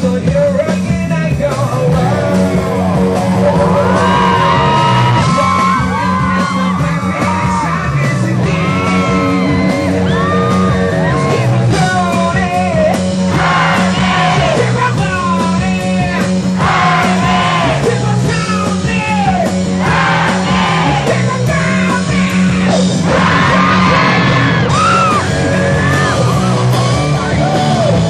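Live rock music: a male singer sings and shouts into a microphone over a band, with a bass line repeating the same pattern of notes throughout.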